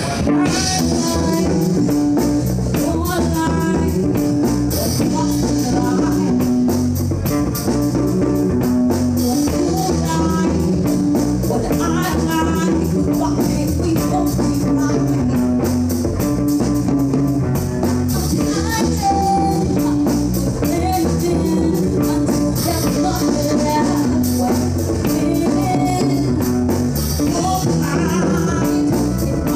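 Live band playing: electric guitar, electric bass, drum kit and keyboards with a steady beat, and a man singing lead into a microphone.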